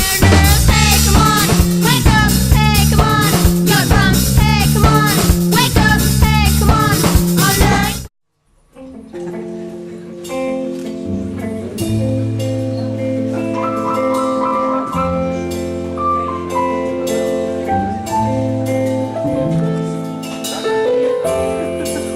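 Music: a loud, dense passage with a voice-like gliding melody cuts off abruptly about eight seconds in, and after a brief silence a quieter instrumental intro begins, with held notes and light plucked or struck notes.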